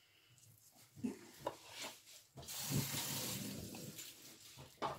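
A few soft knocks, then about two seconds of steady wet, hissing scraping as milk-soaked bread is scraped with fingers out of a ceramic bowl onto ground meat.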